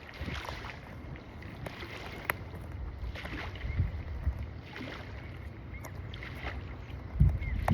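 Uneven low wind rumble on the microphone, with scattered light clicks and knocks and a faint steady high-pitched tone underneath.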